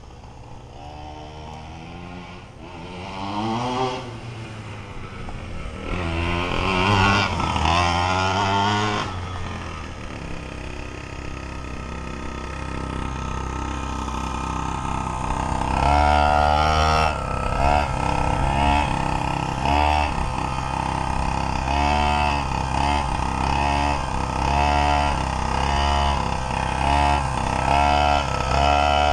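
Small two-stroke gas engine of a 1/5-scale RC monster truck revving up and down as it drives, with rising revs a few seconds in and again around a third of the way through. In the second half the throttle is blipped over and over in quick succession.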